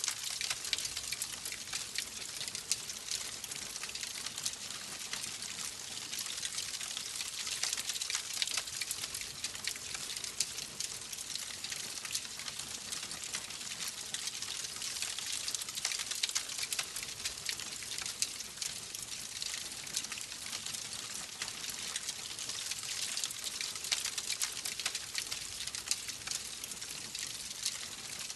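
Wood fire burning steadily, with a dense stream of small sharp crackles and pops over a constant hiss.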